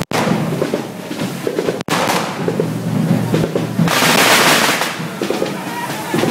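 Spark-spraying fireworks hissing and crackling in surges, the loudest surge about four seconds in, over drumming.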